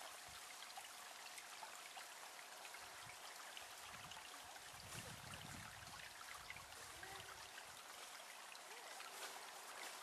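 Faint, steady trickle of a shallow creek running over stones, with a low rumble about halfway through.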